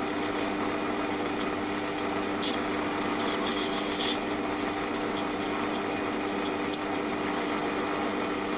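Warco WM180 bench lathe running with a steady hum as a cutter is hand-fed through a spinning nylon workpiece in the four-jaw chuck, giving an uneven high-pitched hiss of cutting that comes and goes.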